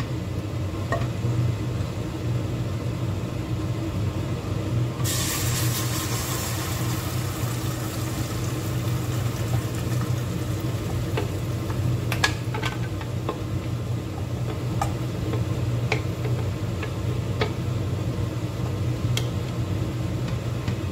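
Blended chili-and-onion spice paste hitting hot oil in a pot and sizzling, starting suddenly about five seconds in and settling as it fries. Later, a wooden spatula stirs the paste with scattered knocks and scrapes against the pot.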